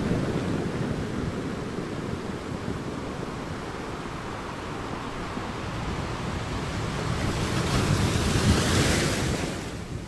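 Sea waves breaking on a rocky shore: a steady wash of surf that swells into a louder, hissier breaking wave about eight to nine seconds in, then falls away just before the end.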